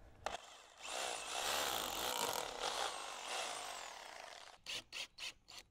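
Cordless drill boring a pilot hole through a metal fixing strap into an aerated concrete (Thermalite) block, its motor whine rising and falling a few times as it cuts. It is followed by several short bursts near the end.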